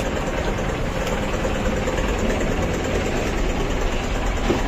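Hero Xtreme 200 motorcycle's single-cylinder engine idling steadily in neutral, just filled with fresh engine oil.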